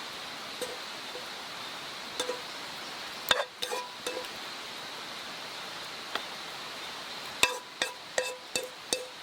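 Light metallic clinks, like cooking utensils tapping a metal cookpot, scattered at first and then coming about three a second near the end, over a steady hiss.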